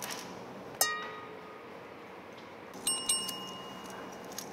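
Chime sound effects added in editing: a bell-like ding about a second in that rings on and fades slowly, then a higher, glittering chime about three seconds in.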